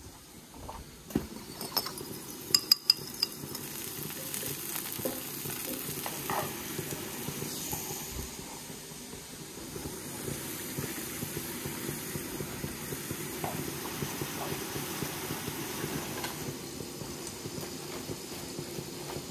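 Potato fries sizzling steadily in hot peanut oil. A few sharp clinks come about two to three seconds in.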